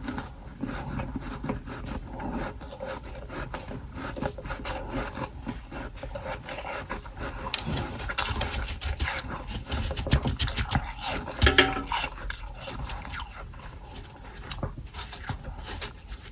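Close-miked chewing of soft freezer frost (humidifier frost): a dense, irregular run of small crunches, with a louder cluster of crunches about two-thirds of the way through.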